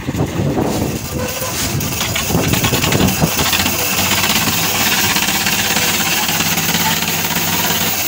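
Concrete mixer machine running at a construction site: a loud, continuous engine drone with mixing clatter. A steady hum settles in about halfway through.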